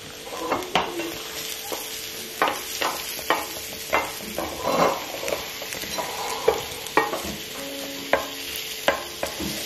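Wooden spatula scraping and stirring sliced button mushrooms in an enamelled skillet, in irregular strokes. Under it the garlic butter keeps up a steady sizzle from the pan's leftover heat, with the stove already off.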